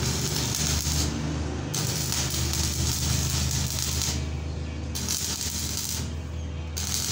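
Electric arc welding on the end of an electric motor's steel rotor shaft, laying on weld to build the shaft up for re-turning: a crackling, spitting hiss that comes and goes in stretches, over a steady low hum.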